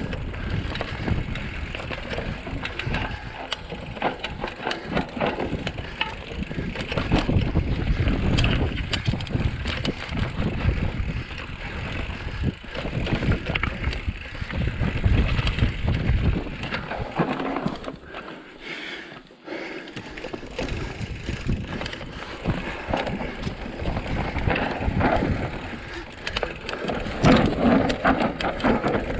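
Giant Trance mountain bike riding fast down a dirt forest trail: tyres on dirt and roots with many knocks and rattles of the bike over bumps, and wind on the microphone. About two-thirds of the way in it goes quieter for a second or two.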